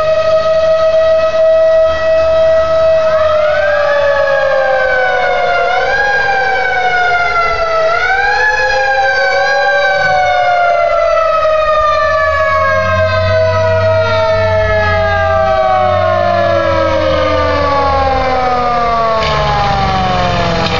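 Fire engine siren approaching: from about 3 seconds in it is wound up in repeated rising swoops, then coasts down in one long, slowly falling wail, the long wind-down of a mechanical siren. A second, steady siren tone holds underneath, and the truck's engine rumble grows as it draws near.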